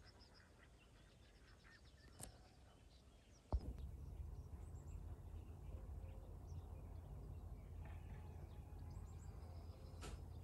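Faint birds chirping in the countryside, with one small click about two seconds in. About three and a half seconds in a knock marks a sudden change to a louder, steady low rumble, with the birds still chirping faintly over it.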